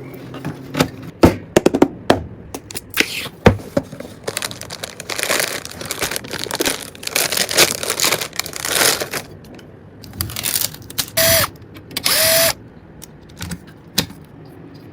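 Hands handling computer parts during a PC build: a run of sharp clicks and knocks, then rustling and scraping. Near the end come two short whirring bursts, like a small power tool.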